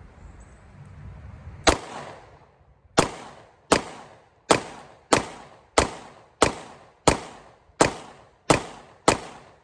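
Taurus GX4 9mm pistol firing eleven shots. One shot comes first, then after a pause of over a second ten more follow at a steady pace of about one every 0.7 seconds, each dying away quickly.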